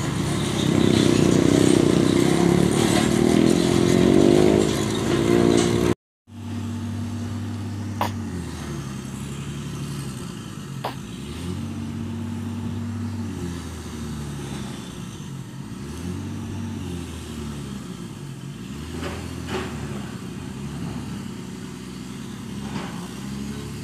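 Old diesel excavator engine labouring, its pitch rising and falling over and over as it strains on a slope it is too weak to climb. A few sharp clicks come through, and the sound cuts out briefly about six seconds in.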